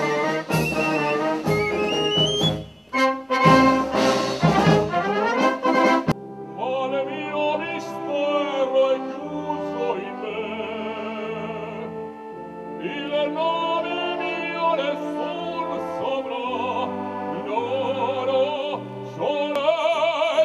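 Military wind band playing: flute, saxophone and brass in a busy passage. About six seconds in it changes to a male singer with wide vibrato over held chords and a slow bass line from the band.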